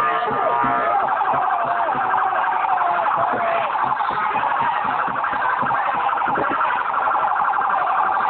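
Police siren sounding with a fast, pulsing warble.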